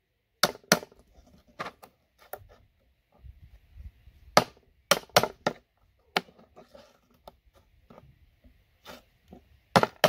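Claw hammer striking the handle of a screwdriver set against plastic RJ45 ethernet connectors on a wooden board, driving out the gold-plated pins. It gives about ten sharp knocks at uneven intervals.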